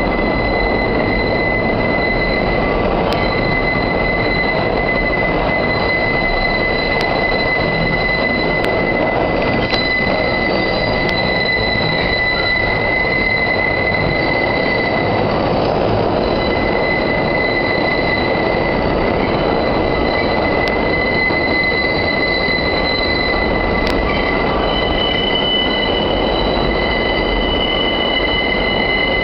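New York City subway 5 train's wheels squealing on the tight curve of the South Ferry loop: a loud, steady, high-pitched shriek held throughout, over the constant rumble of the moving train, with a second higher squeal joining near the end.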